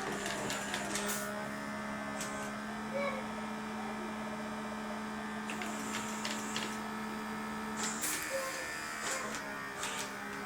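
Small electric motors and plastic gearing of a fischertechnik model running with a steady hum, with scattered clicks and rattles of the moving parts. The hum drops slightly in pitch about eight seconds in.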